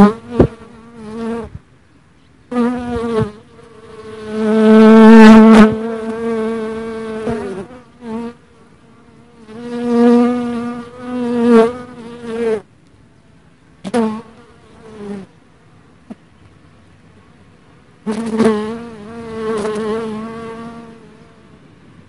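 Black honey bee buzzing in flight close to the microphone, in several bouts that start and stop, the longest and loudest about four to six seconds in. The buzz is one steady wing tone with a slight waver in pitch.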